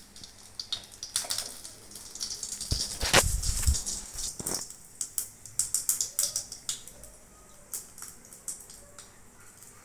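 Seeds crackling and spitting in hot oil in a small steel pan on a gas stove, a dense run of sharp pops that thins out toward the end. Low thumps and rustling about three seconds in.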